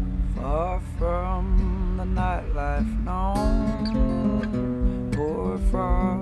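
Background music: a song carried by strummed acoustic guitar, with a melody line over it.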